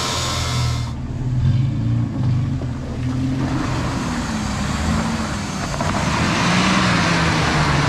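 Toyota Land Cruiser engine revving under load, its pitch rising and falling, with a rushing hiss that builds over the second half.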